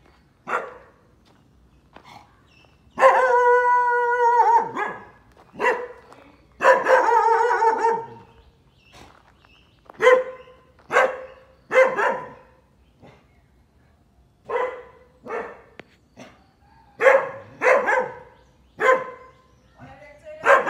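A dog barking again and again, mostly single short barks spaced a second or so apart, with two longer, drawn-out barks about three and seven seconds in.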